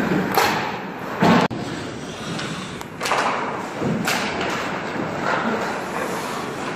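Ice hockey play on a rink: several sudden knocks and thuds of puck, sticks and players against the boards, the loudest a heavy thud about a second in.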